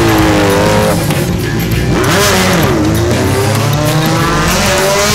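Sport motorcycle engines revving hard under acceleration, the pitch climbing and falling as the riders work the throttle and gears.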